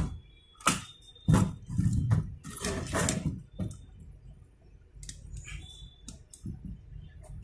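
Handling noises from fingers working on a desktop motherboard's CPU and socket: several sharp clicks, the loudest right at the start, then scraping around two to three seconds in, fading to faint handling noise.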